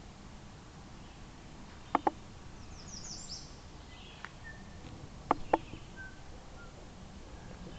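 Outdoor ambience with a steady low rumble, a quick run of high bird chirps, and sharp knocks that come in pairs about two and five seconds in.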